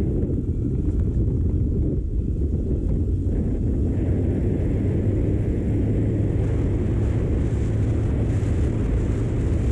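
Wind rushing over the microphone of a moving 100cc motorcycle, with the bike's small single engine droning steadily underneath at cruising speed.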